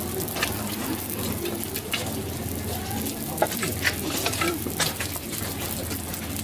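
Okonomiyaki (cabbage, batter and eggs) sizzling on a hot flat iron griddle, a steady frying hiss dotted with many small pops and crackles.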